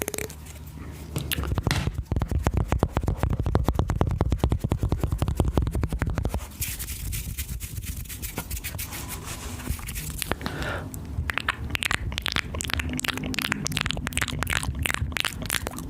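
Close-miked wet ASMR mouth sounds: rapid, dense clicking and smacking with a rumbly low end. Softer and hissier for a few seconds midway, then sharp clicks again near the end.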